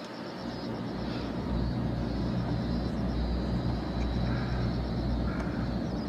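Steady low mechanical rumble with a low hum, over outdoor background noise, growing louder about a second in. A faint, fast, even high pulsing runs underneath.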